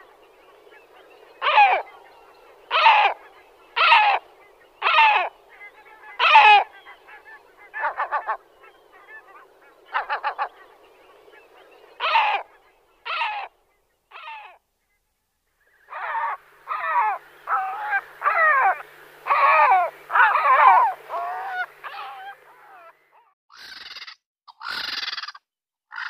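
Gull calls: a string of loud cries with falling pitch, about one a second, then a short gap and a quicker run of calls, with higher, harsher calls near the end.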